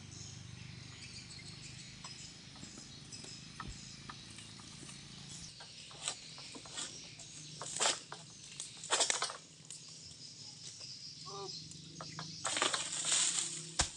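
Oil palm fronds rustling and scraping as a long harvesting pole's blade hooks and drags through the palm crown. There are three loud rustling bursts in the second half and a sharp knock near the end.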